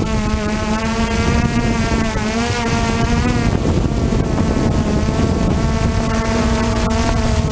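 A hovering drone's motors and propellers buzzing steadily, with a pitch that wavers as the motors adjust, and wind noise on the microphone.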